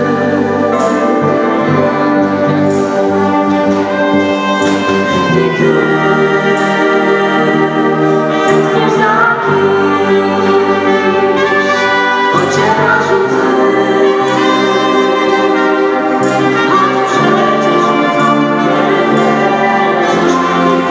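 Live band playing a Christmas carol: women's voices singing into microphones over a brass section that includes a tuba.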